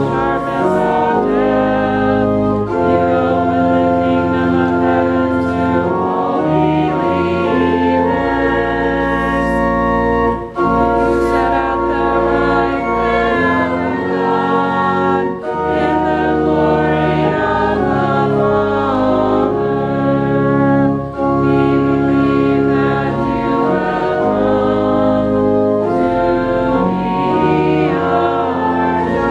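Church organ playing slow, sustained chords that change about every second, with a few brief breaks between phrases.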